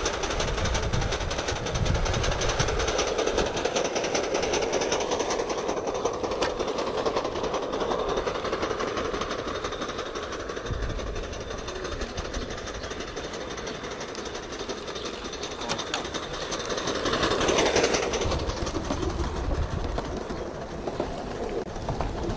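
Gauge 1 model locomotive running on garden railway track, getting louder as it passes close about seventeen seconds in.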